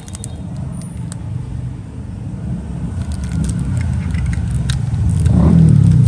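Low rumble of road traffic that swells to its loudest about five seconds in, with a few faint clicks.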